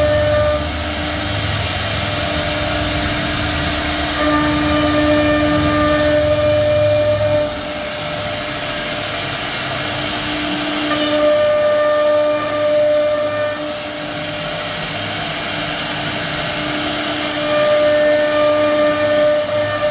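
CNC router spindle running and carving a door design, a steady rushing noise with a humming tone that swells and fades every few seconds as the cutter works.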